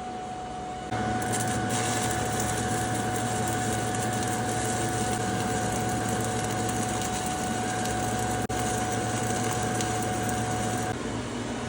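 Stick welding arc burning a 7018 electrode on steel plate while laying a stringer bead: a steady crackling hiss that starts about a second in and stops about a second before the end, with a split-second break in the arc near the end. A faint steady hum runs underneath.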